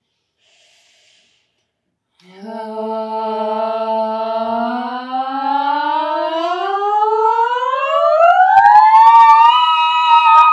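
Two women's voices singing a vocal siren: after a short silence they hold one middle note, then glide slowly and steadily upward to the highest note they can reach, hold it briefly and stop abruptly. The glide carries the voice from chest voice up into head voice.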